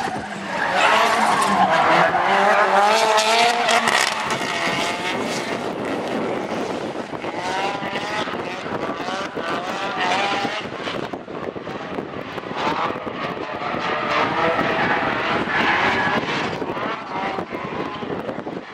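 Two drift cars sliding through a corner in tandem. Their engines rev up and down with the throttle over the hiss and screech of spinning, smoking tyres. It is loudest about a second in and again near the end.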